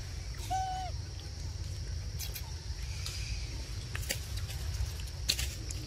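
A newborn macaque gives one short, slightly arching coo about half a second in. A steady high hum and a low rumble run underneath, with a few faint clicks.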